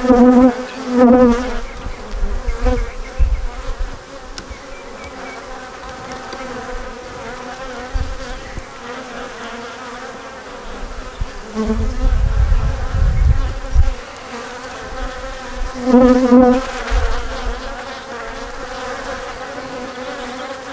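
Honey bees buzzing over an open hive: a steady hum that swells briefly now and then as bees pass close. A low rumble runs for a couple of seconds past the middle.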